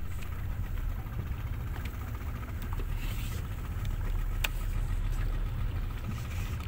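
A small boat's motor running steadily with a low, even drone.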